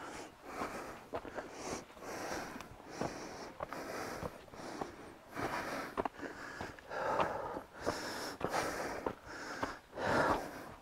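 A hiker breathing hard while walking, a breath about every second, with footsteps on a leaf-covered dirt trail.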